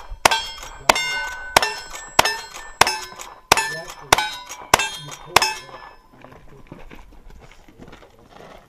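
Rapid string of nine single-action revolver shots, about two-thirds of a second apart, each followed by the clang of a steel plate target being hit and ringing. The string stops about five and a half seconds in.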